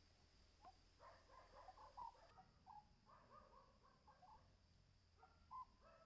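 Oriental scops owl calling faintly: quick runs of short, low chattering notes from about a second in, with another short burst near the end. A faint, steady high-pitched hum runs behind.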